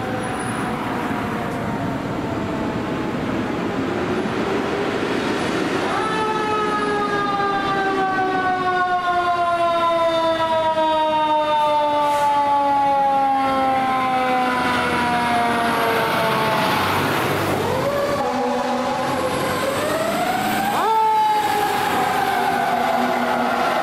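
Fire truck siren on a Santa Monica Fire Department ladder truck and rescue unit responding. The siren winds sharply up in pitch three times and after each rise slowly winds down, growing louder as the trucks pass.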